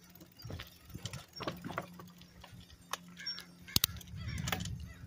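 A riding bicycle rattling and clicking, with scattered sharp knocks over a low rumble; one sharp knock a little before four seconds in is the loudest.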